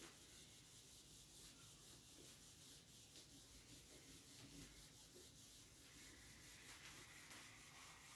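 Near silence with the faint rubbing of a duster wiping marker writing off a whiteboard.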